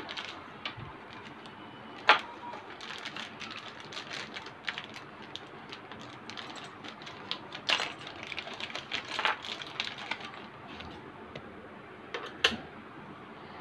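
Scattered light clicks and clatter of metal sewing-machine presser feet being handled and swapped on the machine, with sharper clicks about two seconds in and near the end.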